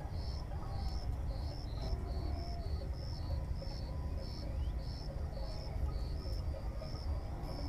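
An insect chirping steadily, about two short high chirps a second alternating between two slightly different pitches, over a steady low rumble.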